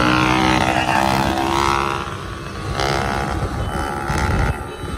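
Small motorcycle engine running close alongside, its pitch sliding in the first couple of seconds, mixed with traffic and wind noise.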